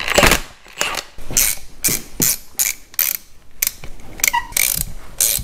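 Hand ratchet clicking through repeated short back-and-forth strokes, about two or three a second, backing out a corroded 19 mm fitting.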